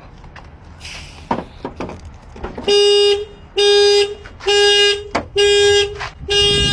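Car horn blaring in evenly spaced blasts about once a second as the car alarm goes off, typical of a locked car's door being opened without the key. A few knocks and clicks come before the horn starts.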